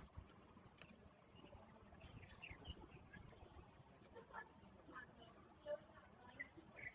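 Faint steady high-pitched insect buzzing, with faint scattered distant voices and small noises under it.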